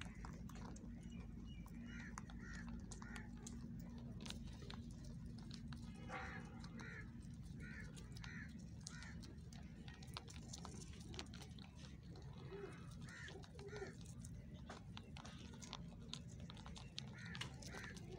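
Rabbits crunching dry feed pellets: many small crisp clicks of chewing and biting. Short runs of bird calls come in now and then over a steady low background hum.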